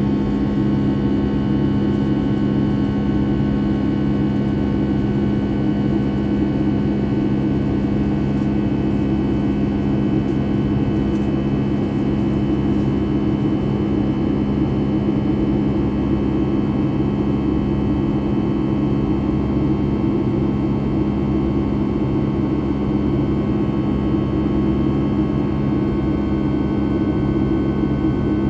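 Boeing 757-200's Rolls-Royce RB211-535E4B turbofans running steadily, heard from inside the cabin: a constant jet drone with a low hum and several steady whining tones, not changing in pitch or loudness.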